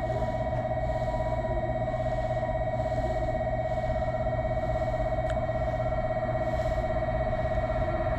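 Station platform train-approach warning: a steady electronic tone with a rapid flutter, sounding continuously to warn of a train about to pass through.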